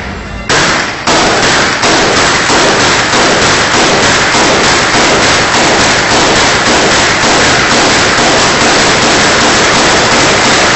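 Celebratory gunfire: two separate shots, then from about two seconds in an unbroken, rapid volley of loud reports that keeps going.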